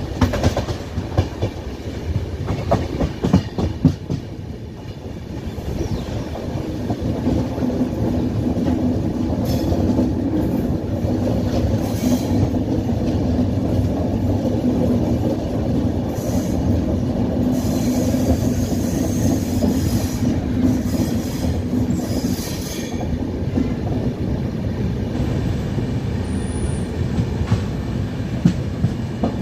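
Double-decker express passenger coaches running over rails and pointwork, heard from an open coach doorway as the train arrives at a station. A steady rumble carries sharp clickety-clack over the points in the first few seconds, and high-pitched wheel squeals come at several moments in the middle.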